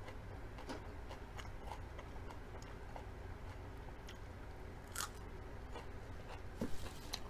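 Close-up biting and chewing of crisp lettuce leaf: faint, scattered crunches, with a sharper crunch about five seconds in.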